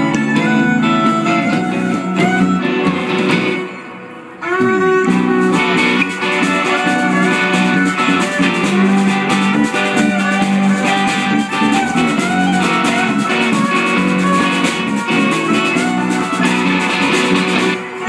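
Live rock band playing blues-tinged rock with electric guitars, drum kit and violin. The music drops away briefly about four seconds in, then comes back in full.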